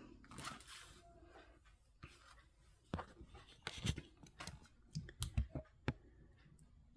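Handling noise from a rolled diamond painting canvas with a plastic film cover being unrolled and pressed flat on a wooden table: scattered light clicks, taps and crinkles, bunched between about three and six seconds in.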